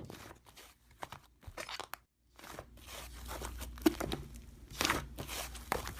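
Slime being squeezed and pressed by hand, giving a run of crunchy crackling and popping clicks, with a brief complete silence about two seconds in.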